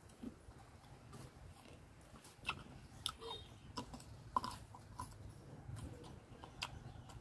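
A person chewing and biting raw fruit: a few short crisp crunches and clicks, the loudest a little over four seconds in.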